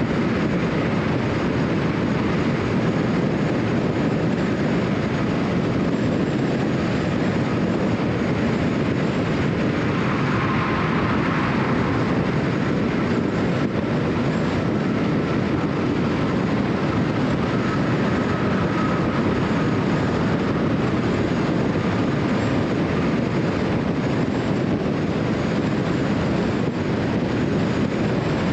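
Steady road and tyre noise of a car cruising at highway speed, with a faint high whine that comes in about a third of the way through and fades after the middle.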